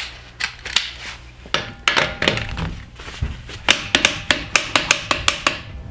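Wrench working the front wheel's lug nuts as they are loosened: sharp metal clicks and knocks, scattered at first, then a quick run of clicks about five or six a second in the second half.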